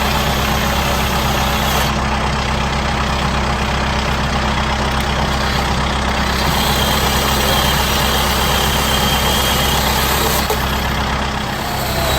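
Kubota M7060D tractor's four-cylinder diesel engine running steadily.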